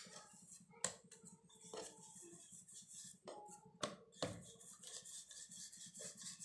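Faint handling sounds of rolling out a folded paratha: a wooden rolling pin and hands working the dough on a round rolling board, with a few soft knocks spread about a second apart.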